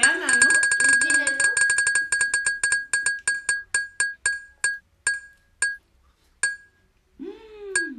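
Spin-the-wheel ticking sound effect: rapid ringing clicks that slow down steadily and stop about six and a half seconds in as the on-screen wheel comes to rest.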